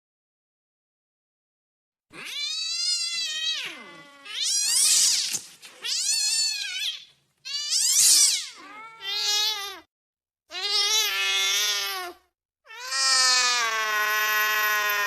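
Angry cat yowling: after about two seconds of silence come about seven long, wavering, drawn-out caterwauls with short breaks between them, the last still going at the end.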